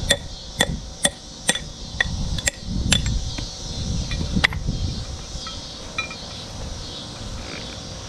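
Hammer tapping on steel baler parts: seven ringing metallic taps at a steady two a second, then one more about a second and a half later.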